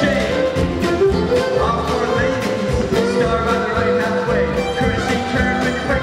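Live string band playing an instrumental contra dance tune: fiddle carrying the melody over mandolin, acoustic guitar, upright bass and a drum kit keeping a steady beat.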